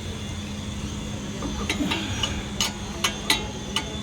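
Sharp metallic clicks and taps of hand tools on metal, about six of them spaced unevenly through the second half, over a steady background hum.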